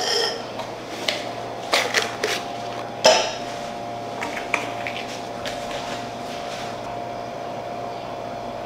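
Glassware clinks and plastic taps as a wine glass of water and a tube of effervescent vitamin C tablets are handled on a kitchen counter: several sharp knocks, some with a brief ring, in the first three seconds, then a faint steady hum.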